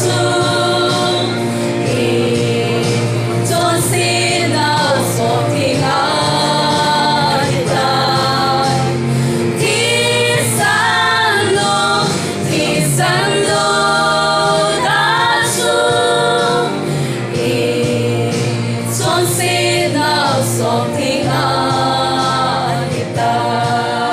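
A small group of women singing a gospel song together into microphones, over a steady low sustained tone underneath.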